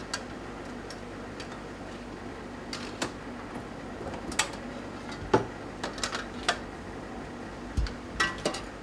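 Metal parts of a model steam engine clinking and knocking as the boiler drum is fitted into its sheet-metal firebox on a steel press fixture: a dozen or so short, sharp taps, the loudest about halfway through and near the end, over a steady background hum.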